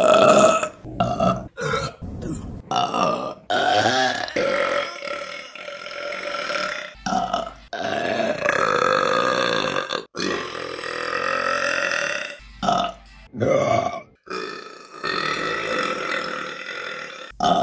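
Women burping, one clip after another: a string of loud, pitched belches, several of them long and drawn out, with abrupt cuts between them.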